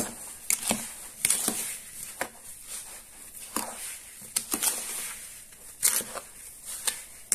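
Spoon stirring whole raspberries and sugar in a plastic bowl: irregular scraping and clicking strokes, about one or two a second.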